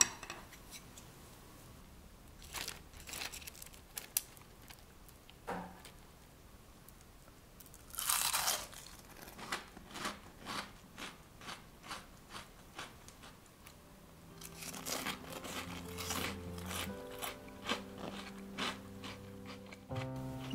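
Crisp shepherd's purse tempura being bitten and chewed: a few crackly crunches, one long loud crunch about a third of the way in, then steady chewing crunches about two a second. Soft music comes in about two-thirds of the way through.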